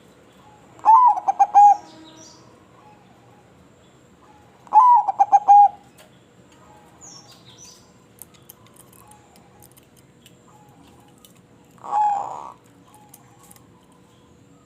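Zebra dove (perkutut) cooing: two phrases of rapid, stuttering coo notes a few seconds apart, then a single shorter coo near the end.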